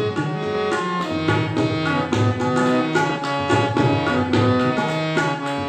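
Instrumental interlude of a children's song: tabla strokes under a melody played on a pitched instrument.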